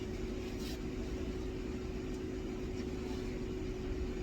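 A steady machine hum with one constant drone and a low rumble, and a couple of faint clicks.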